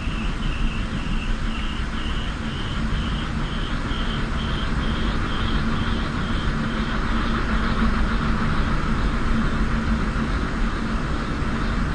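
Steady roar of storm-force wind. A rapid high beeping, about three a second, runs over it and fades out about seven seconds in.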